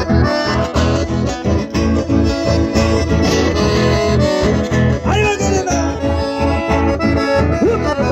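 Live band music from two accordions and an acoustic guitar played through microphones, a dance tune over a steady beat.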